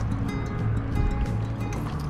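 Background music with held low notes.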